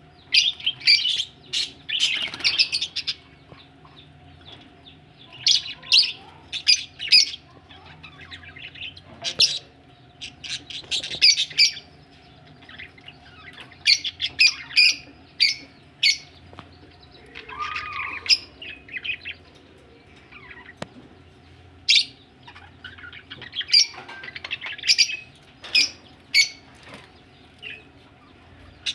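Budgerigars chirping in short, high bursts that come in clusters with brief pauses between them.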